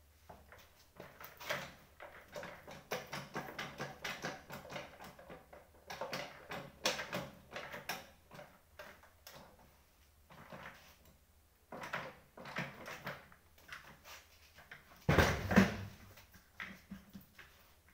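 Office chairs being moved and handled: scattered knocks, clatter and scraping of their frames and parts, with one heavier thump about fifteen seconds in.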